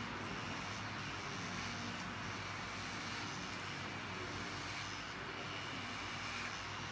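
Corded electric hair clippers buzzing steadily as they trim the short hair at the back of the neck.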